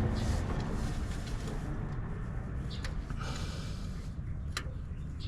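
Hand tools working a bolt on a truck's starter mount: a few sharp metallic clicks and scrapes over a steady low rumble.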